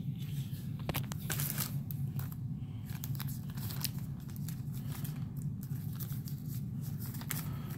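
A clear plastic zip bag crinkling and crackling as it is handled, in many short, sharp rustles.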